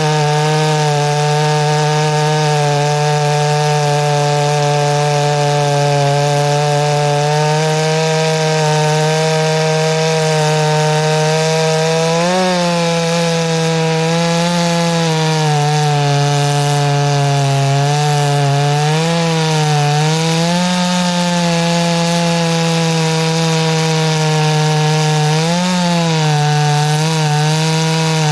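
Ported two-stroke chainsaw cutting wood at full throttle. The engine note holds steady, with several brief dips and wobbles in pitch as the chain loads up in the cut.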